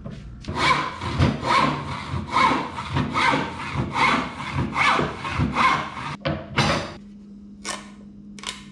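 Hand rip saw cutting through a pine board in quick, even back-and-forth strokes, about two to three a second, finishing the rough cut of a curve. The sawing stops about seven seconds in, followed by a few light knocks of the wood being handled.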